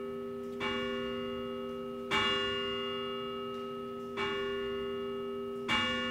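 A church bell tolling: four strokes about one and a half to two seconds apart, each ringing on into the next.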